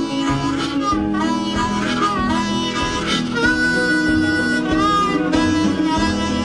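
Soundtrack music: a lead instrument plays held notes that bend in pitch over a steady accompaniment.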